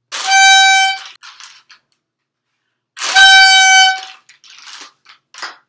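A party horn blown twice: two loud, steady one-note blasts of about a second each, the second about three seconds after the first.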